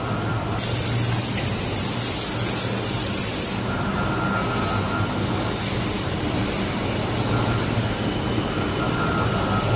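Orbital horizontal wrapping machine running, its ring carrying the film carriage around a steel profile as it wraps: a steady mechanical hum, with a loud hiss for about three seconds starting just after the beginning.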